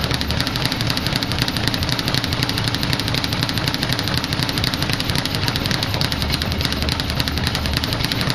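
Leather speed bag being punched nonstop, rattling off its rebound board in a rapid, steady, machine-gun-like stream of hits.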